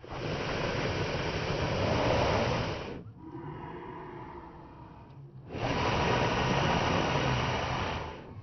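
Two long gusts of air rushing over the microphone, each about three seconds, with a quieter stretch between.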